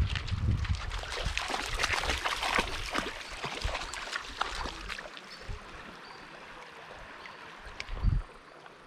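Shallow river water splashing and trickling over a rocky bed. The splashing is busiest for the first few seconds and then thins out, with a brief low bump near the end.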